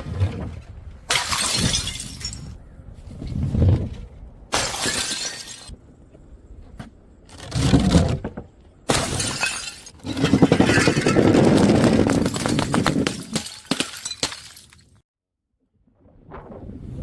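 Glass bottles smashing on stairs, one after another: several separate crashes of breaking glass, one of them a longer crash lasting about four seconds.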